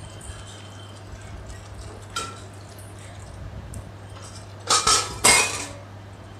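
Stainless-steel lid with a black knob set down on an aluminium kadhai to cover the frying masala: a light clink about two seconds in, then a quick cluster of loud metallic clanks that ring briefly near the end.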